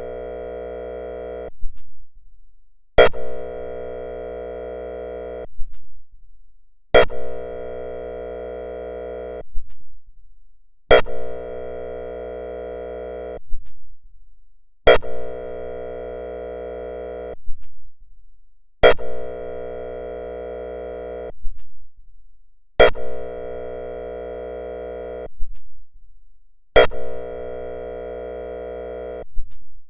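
Whelen ESC-864 electronic siren sounding its airhorn signal: a steady, buzzy horn tone in repeated blasts of about two and a half seconds, one every four seconds. Each blast starts with a sharp click.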